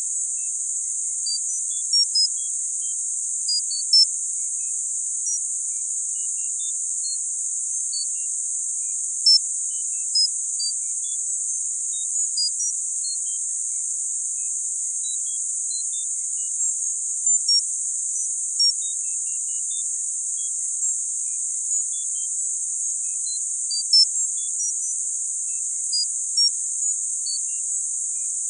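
Tinnitus-masking sound: a steady, high-pitched narrow-band hiss with no low end, sprinkled with short high tones at scattered pitches that come and go at irregular intervals.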